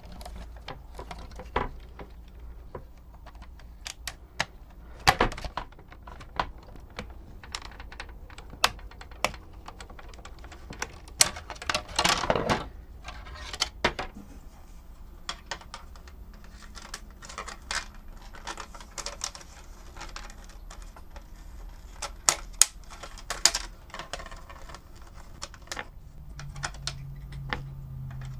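Irregular clicks, taps and light clatter of small plastic parts and a tool being handled while an Omnibot 2000's tray mechanism is taken apart, with a longer scraping rustle about twelve seconds in.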